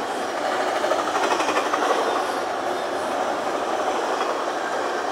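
Union Pacific double-stack container train passing at speed: a steady rumble and rattle of the cars' wheels on the rails, with some clickety-clack. It swells a little about a second in.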